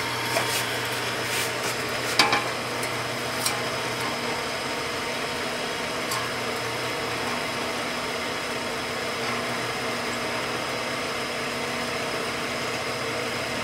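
Bench drill press running steadily with its electric motor humming, as the bit is lowered onto a chrome motorcycle muffler shell to drill a rivet hole. A few light clicks and knocks come in the first few seconds.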